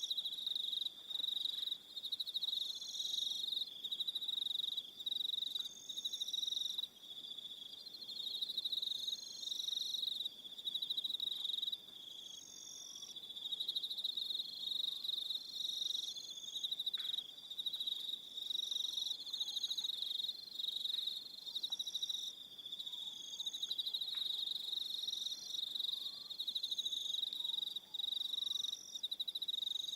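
Crickets chirping in an evening chorus: a dense, continuous pulsed trill, with shorter higher-pitched calls repeating every second or two.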